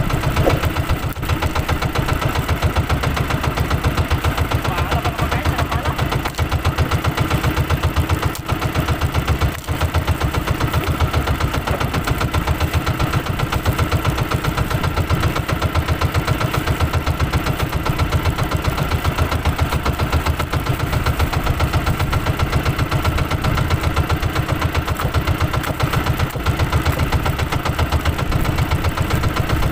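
The inboard engine of an outrigger banca boat running steadily, with a fast, even chugging beat.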